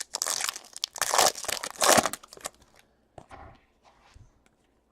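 Foil wrapper of a Bowman Chrome trading-card pack crinkling as it is torn open and crumpled, loudest in the first two and a half seconds, then a few light rustles and clicks.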